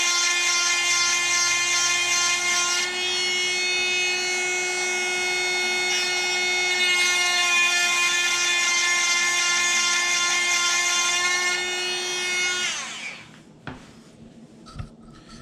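Oregon SureSharp 12V handheld chain sharpener's small motor running with a steady high whine as its grinding stone sharpens a chainsaw cutter tooth. About thirteen seconds in, it spins down and stops.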